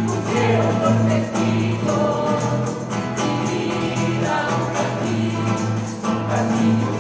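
A folk ensemble of many acoustic guitars strumming a steady rhythm while a mixed choir of men's and women's voices sings, over strong sustained low bass notes.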